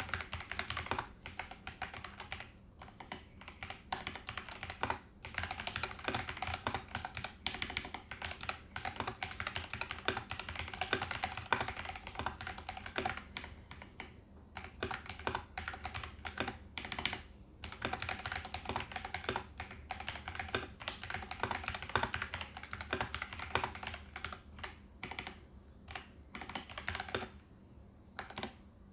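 Fast, continuous typing on a mechanical keyboard fitted with light Huano Rose Cream V2 linear switches and ABS keycaps, a dense stream of keystroke clacks that stops shortly before the end.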